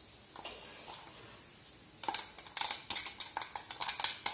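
A steel spoon scraping and knocking inside a stainless-steel grinder jar to empty out ground spice powder. A few soft scrapes come first, then about two seconds in a quick run of sharp metal clinks begins.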